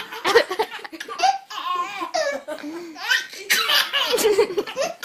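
A baby laughing hard in a string of short laughs.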